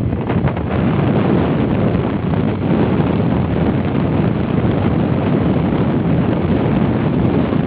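Steady wind buffeting the microphone over the rumble of a moving vehicle on the road.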